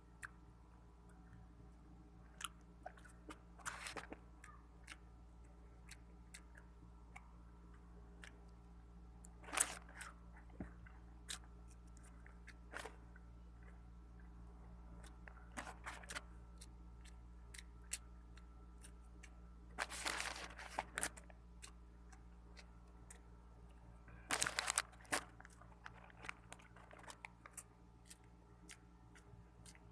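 Faint chewing and biting of McDonald's French fries, with scattered small crunches and a few louder crackling spells about four, ten, twenty and twenty-five seconds in. A steady low hum runs underneath.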